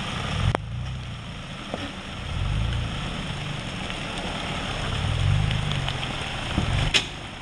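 Toyota Fortuner's engine crawling over wet rocks at low speed, its low rumble swelling and easing twice as the throttle is worked, with a sharp knock just before the end.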